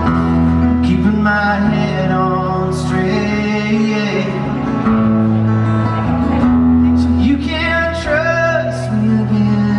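Rock band playing live: guitars and bass with a male voice singing.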